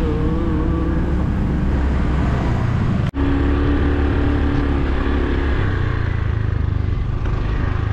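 Motorbike ridden at speed: its engine running steadily under a dense rush of wind noise on the microphone. The sound breaks off sharply for an instant about three seconds in and carries straight on.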